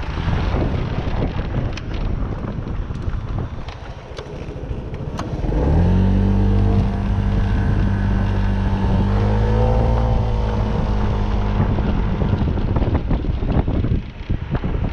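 A vehicle engine heard through wind rushing over the microphone. About five seconds in, the engine note rises and then holds steady for some six seconds before sinking back into the wind noise.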